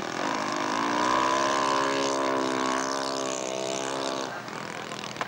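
Small model-airplane engine running at high revs: its note dips and rises in the first second, then slowly sags in pitch. It stops about four seconds in as the model noses over on the runway.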